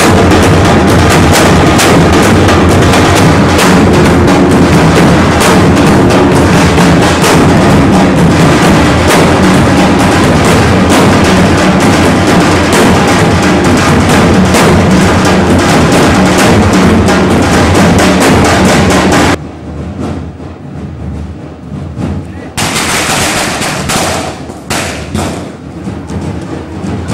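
Loud dhol drumming: several large barrel drums beaten hard with sticks in a fast, dense rhythm. It cuts off suddenly about two-thirds of the way in, leaving much quieter, uneven background noise.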